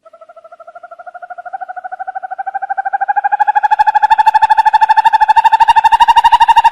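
Owl giving one long, rapid trill of about a dozen notes a second, swelling from faint to loud and rising slightly in pitch.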